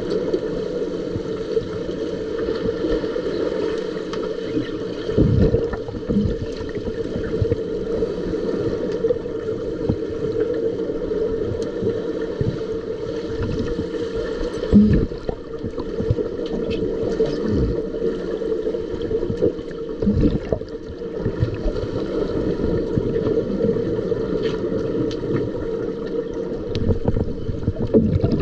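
Underwater swimming-pool sound picked up by a submerged camera: a steady hum over a muffled wash of water noise, with a few dull thumps.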